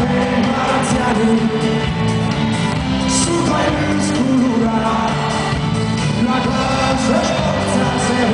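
Live band playing a folk-rock song with a singer, loud and steady, heard from among the concert audience.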